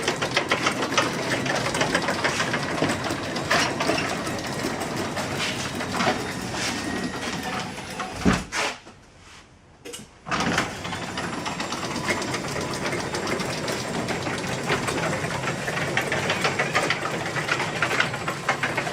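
Garage door opener running with a rapid mechanical clatter, broken by a short silence about halfway through.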